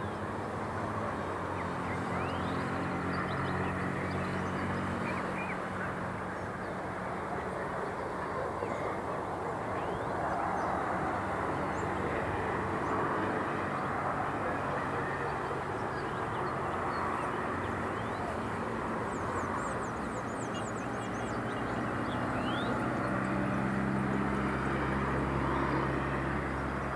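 City ambience: a steady wash of traffic noise with a low engine hum that swells near the end, overlaid by birds chirping, with a flurry of quick high chirps about two-thirds of the way through.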